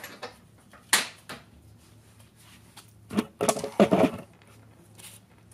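A sharp click about a second in, then a short run of clattering and knocking from about three to four seconds in: tools and parts being handled during golf-cart suspension work.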